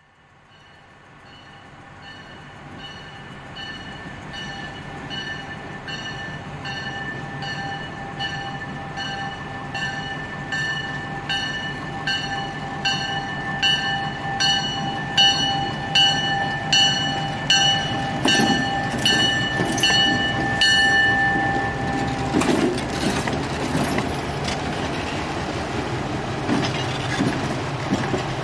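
A diesel locomotive's bell rings steadily, about one and a half strokes a second, as McCloud Railway #37 approaches, over a low engine rumble that grows louder. The bell stops about 22 seconds in. Wheels then knock and clack over the rail joints at the crossing as the locomotive passes.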